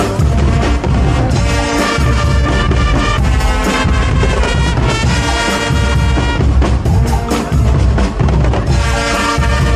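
A live brass and drum band playing loudly, brass notes over a steady drum beat.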